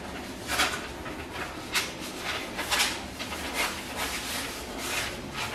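Brown pattern paper rustling and crackling in short irregular rustles as a large sheet is lifted and folded by hand.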